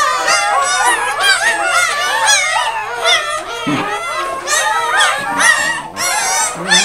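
A litter of newborn Scottish Deerhound puppies squeaking and squealing, many short high cries rising and falling and overlapping without a break.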